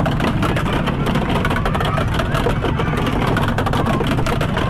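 Steady mechanical rumble with indistinct voices mixed in and a scatter of small clicks.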